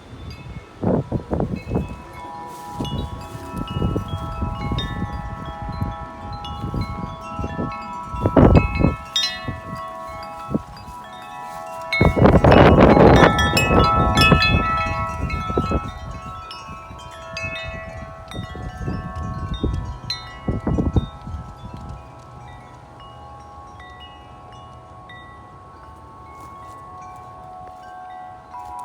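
Several wind chimes ringing continuously as a strong gusting wind knocks them about. Wind buffets the microphone in gusts, hardest about halfway through, and eases near the end while the chimes ring on.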